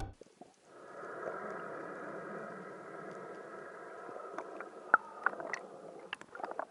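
Underwater ambience from a spearfishing dive: a steady hum with a few steady tones in it, and scattered sharp clicks later on, the loudest about five seconds in.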